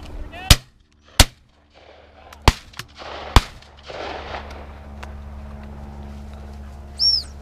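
Shotguns firing: four sharp, very loud shots within about three seconds. Near the end comes one short blast on a gundog whistle.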